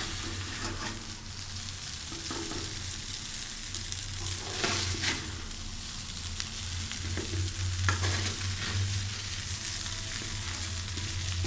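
Masala Maggi noodles sizzling as they fry in a pan, stirred with a spoon that scrapes the pan now and then, the clearest strokes about five and eight seconds in. A low steady hum runs underneath.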